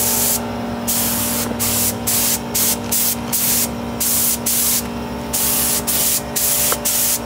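Siphon-feed air spray gun spraying primer in many short hissing bursts as the trigger is pulled and released, with a steady low hum underneath.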